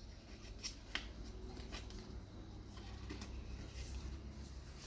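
Faint rustling and a handful of light, irregular clicks from packaging and small parts being handled.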